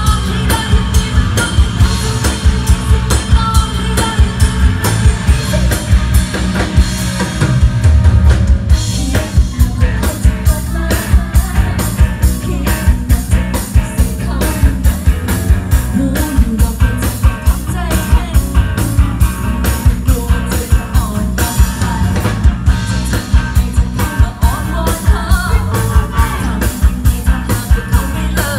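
A live band playing with a steady drum beat, drum kit, electric bass and keyboard, while a female singer sings lead into a microphone.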